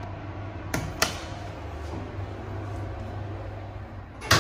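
Lift car buttons clicking twice about a second in, over the steady low hum of the lift car, then the car doors closing and meeting with a thud near the end.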